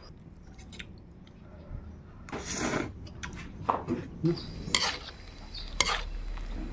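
Kitchen utensils and dishes being handled: scattered clinks and knocks, with one longer scraping sound about two and a half seconds in.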